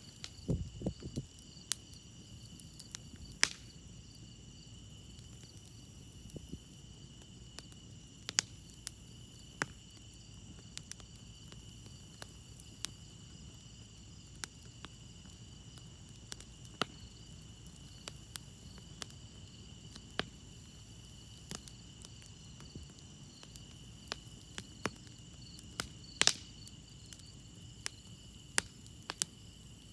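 Campfire crackling, with scattered sharp pops (two louder ones, a few seconds in and near the end), over a steady chorus of crickets chirping. A few soft low thumps sound just after the start.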